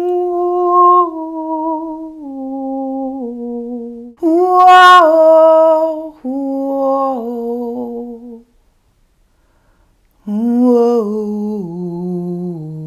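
A woman's voice humming and singing wordless held tones, in phrases that each step down in pitch. The second phrase, about four seconds in, is the loudest and brightest. There is a pause of about two seconds before a last, lower phrase.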